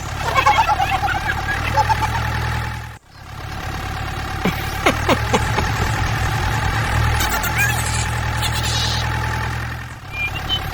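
A vehicle engine running with a steady low hum and a steady whine, cut off abruptly about three seconds in and starting again, with a few sharp clicks in the middle and squeaky chirps near the start.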